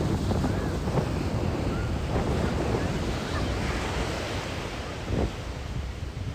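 Sea surf washing onto the beach, with strong wind buffeting the microphone in a constant low rumble.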